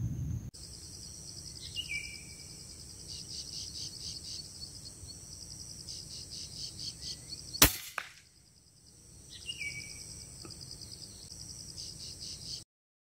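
A single air rifle shot a little past halfway, a sharp crack from a .177 air rifle firing a 16-grain slug, followed a fraction of a second later by a fainter knock. Around it a steady, pulsing insect chorus, with a short falling bird call twice; the sound cuts off sharply near the end.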